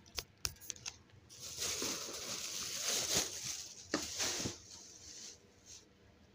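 Plastic grocery bag rustling and crinkling as it is handled, with a few light clicks and knocks. The rustling runs for about three seconds in the middle, then dies away.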